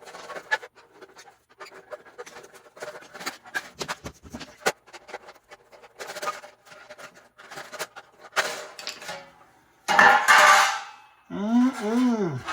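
Scattered clicks, taps and scraping from handling the removed dryer heating element and its tin housing. About ten seconds in there is a loud, short rush of noise, then a brief pitched sound that rises and falls twice.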